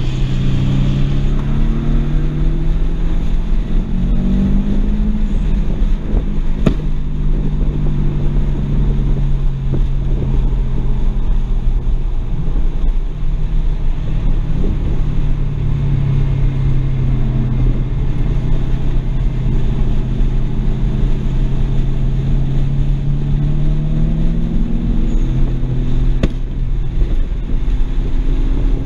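A 2007 BMW 335i's twin-turbo N54 straight-six heard from inside the cabin under way, its note climbing twice with throttle and otherwise steady, over road and wind noise. Two sharp clicks, about 7 seconds in and near the end.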